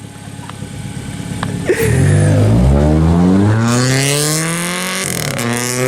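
Car engine accelerating hard, its pitch climbing steadily from about two seconds in, with a short break for a gear change near the end before it climbs again.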